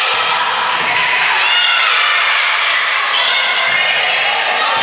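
Indoor volleyball play in a reverberant gym: the ball being hit and bounced, over a steady background of crowd chatter.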